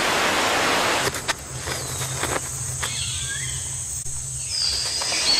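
Rainforest ambience: a rushing haze of noise for about a second, then a low steady hum under faint high gliding calls, with a sharper high call near the end.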